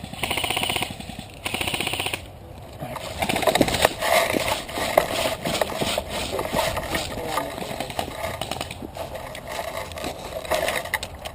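Airsoft gun firing two rapid bursts, each under a second long, in the first two seconds, followed by an irregular mix of rustling noise and scattered clicks.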